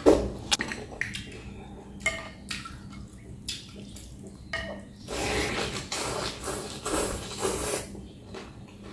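Mouth sounds of eating noodle soup: a few sharp clicks of chopsticks on the glass bowl in the first couple of seconds, then a longer spell of wet slurping of noodles and broth from about halfway through.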